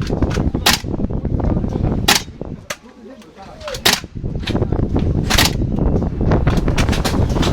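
Gas blowback airsoft rifle firing single shots, four sharp loud cracks about a second and a half apart with fainter clicks between them. Strong wind rumbles on the microphone underneath.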